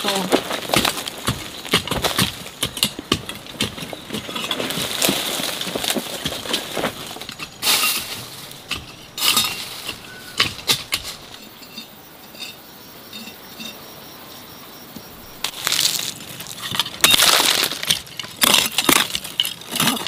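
Irregular clatter of knocks and clinks, like hard objects being handled and set down, with a quieter stretch about halfway through.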